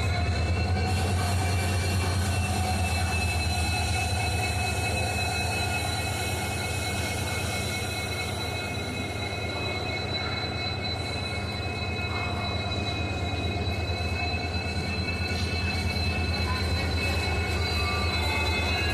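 Indian Railways WDP4 diesel locomotive's EMD two-stroke V16 engine running steadily, humming with a high turbocharger whine over a low engine drone.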